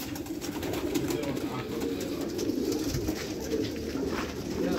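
Many homing pigeons cooing at once, a steady, overlapping low cooing with no pause.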